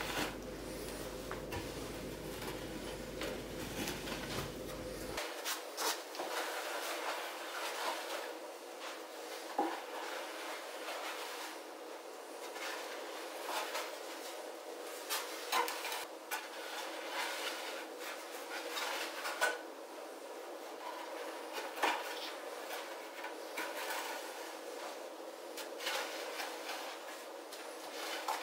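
A homemade wooden levelling board on a long handle dragged back and forth over loose sand, a scraping hiss with irregular short knocks and scrapes.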